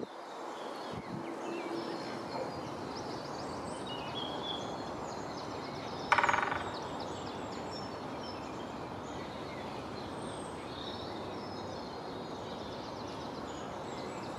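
A great spotted woodpecker drums once about six seconds in: a single rapid roll of beak taps on wood, lasting about half a second. It is a spring drumming display. Other small birds sing faintly over a steady background hiss.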